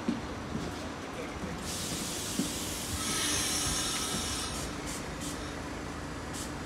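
Hiss of compressed air from an R46 subway train's air system. It starts about two seconds in, is strongest for a second or so, then fades over a steady low hum and a few light clicks.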